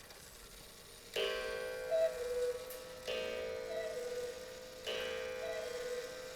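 Antique Johann Baptist Beha cuckoo clock striking the hour with its original bellows: three two-note cuckoo calls, high then low, each starting with a ringing strike, about two seconds apart, beginning about a second in.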